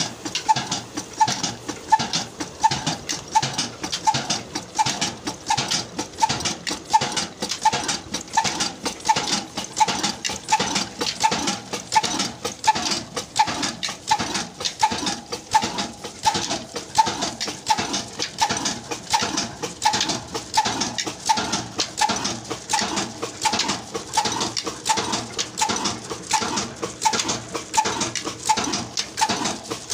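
Sadaqat 35 HP horizontal diesel engine with a heavy flywheel running steadily under load, driving a belt to a water pump. It beats evenly, a little over twice a second, with a clatter between the beats.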